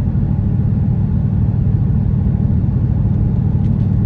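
Steady in-cabin drone of a 2018 Mustang GT's Whipple-supercharged 5.0 L V8, breathing through factory mufflers with an X-pipe, cruising at an even pace with road noise underneath.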